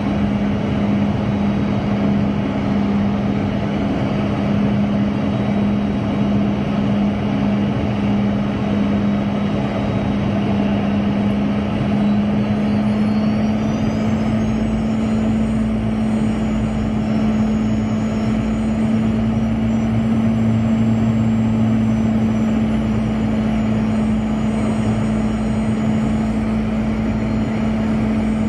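Boeing 717 in flight: steady jet engine and airflow noise with a constant low hum. About halfway through, a faint high whine rises in pitch and then holds.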